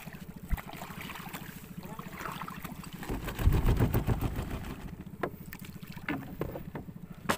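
Water sloshing and trickling around a small outrigger boat's hull, with a louder surge of water about three to four seconds in. A few sharp knocks on the boat come near the end, over a small engine running steadily underneath.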